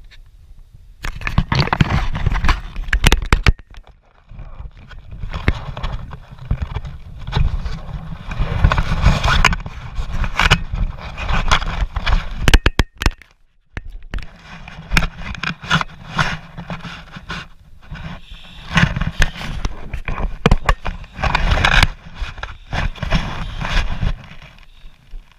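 Rubbing, scraping and knocking of an action camera being handled, loud against its own microphone, in irregular bursts with a brief pause about halfway through.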